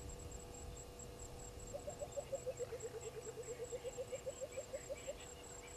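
A bird calling: a rapid run of short, low hooting notes, about seven a second, that starts about two seconds in, dips in pitch and climbs again, and stops after about three and a half seconds. A faint, high, regular pulsing, like an insect, runs underneath.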